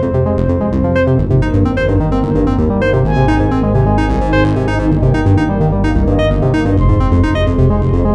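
A Samsung Galaxy A54 5G ringtone playing: electronic synthesizer music with a steady beat and quick, busy keyboard notes.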